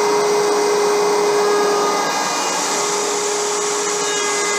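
Handheld electric router running at speed while routing a roundover on the underside edge of a wooden seat board: a steady, loud motor whine mixed with the noise of the bit cutting. Its note shifts slightly about two seconds in.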